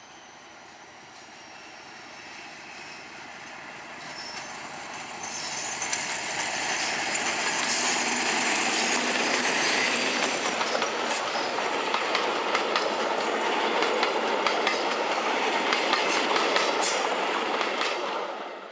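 Class 56 diesel locomotive, with its Ruston-Paxman V16 engine, approaching and passing, growing steadily louder over the first six seconds. Its coaches then go by with wheels clicking and clattering over the rail joints and some high wheel squeal, and the noise falls away near the end as the last coach passes.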